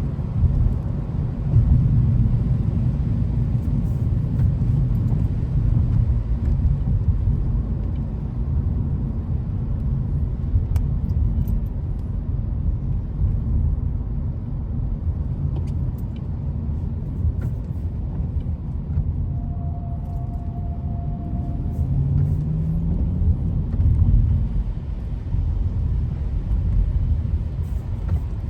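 Steady low rumble of a car on the road, engine and tyre noise. A short steady tone sounds about two-thirds of the way through.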